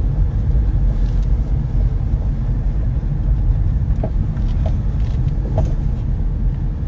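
Ford Mustang S550 on the move with a steady low road-and-engine rumble, and short clunks from its BC Racing coilover suspension about four times.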